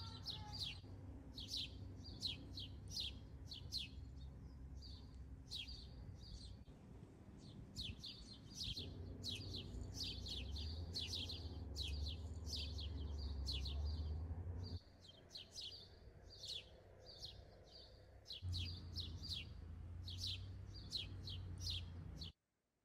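Small songbirds chirping in the garden: many short, quick chirps several times a second, over a low steady rumble. The sound stops abruptly near the end.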